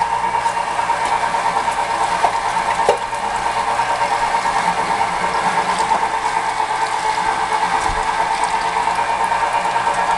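Fabio Leonardi electric tomato milling machine running steadily as it mills whole tomatoes, its motor giving an even hum.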